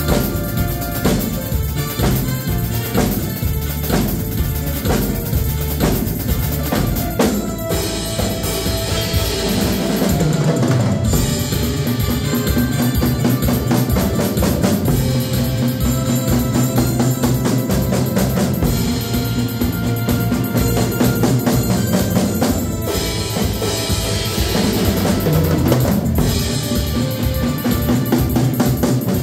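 Tama drum kit played live along with a recorded pop-rock backing track, bass drum, snare and cymbals keeping a steady beat; the arrangement shifts about ten seconds in.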